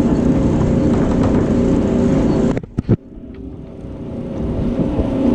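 A steady engine hum that breaks off abruptly about two and a half seconds in, with a couple of clicks, then comes back gradually over the next two seconds.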